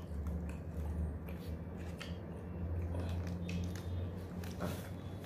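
Chapatti being torn apart by hand, several short rustling tears over a steady low hum.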